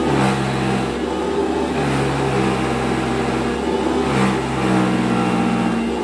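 1979 Goblin Housemaid GL888 upright vacuum cleaner running, with a low hum that comes and goes every second or two. This is the brush roll jiggling up and down, from play either in the barrel on its axle or from wear where the end caps sit.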